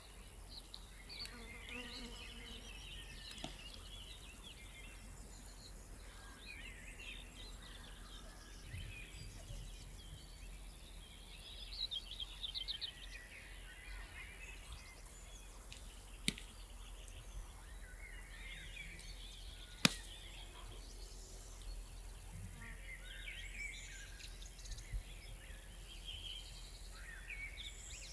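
Songbirds chirping and singing over a steady background hiss, with a quick run of rapid repeated notes about twelve seconds in. Two sharp clicks stand out later on.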